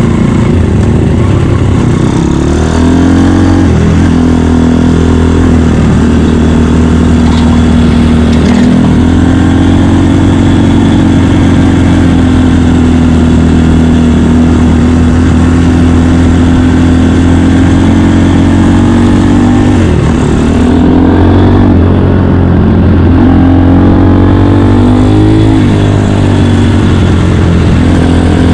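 Honda Dax's 150cc single-cylinder engine running under way at steady revs, the pitch dipping and climbing back up several times as the throttle and gears change.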